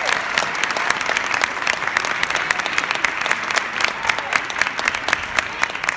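Audience applauding at the end of an a cappella choir song: dense, steady clapping from many hands.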